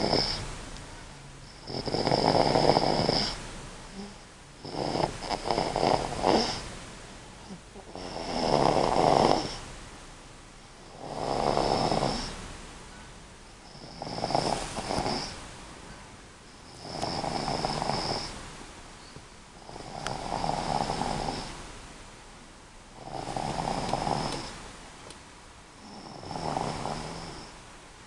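A sleeping pet snoring steadily, about ten snores in a regular rhythm, one every three seconds or so. Some snores flutter and rattle, and each carries a thin high whistle.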